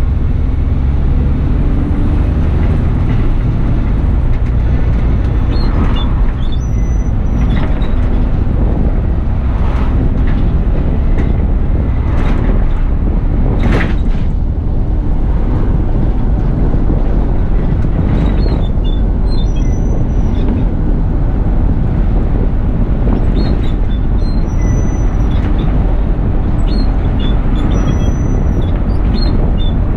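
Bus running along the road, heard from the driver's seat: a steady low engine drone with occasional knocks and rattles and a few short high beeps.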